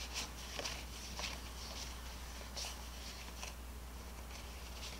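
Paper dollar bills rustling softly as they are counted through by hand, a series of faint flicks about every half second, over a steady low hum.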